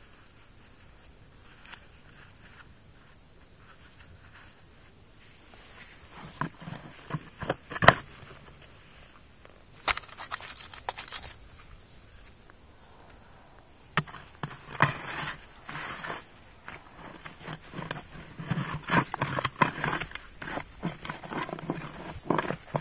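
Hand auger turning in soil: intermittent gritty scraping and crunching with a few sharp clicks, starting after a quiet few seconds and growing denser in the second half.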